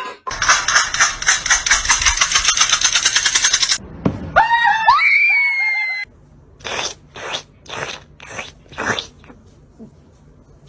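A loud, fast rattling lasting about three and a half seconds, then a cat meowing in calls that rise and fall in pitch, followed by a handful of short, sharp sounds about half a second apart.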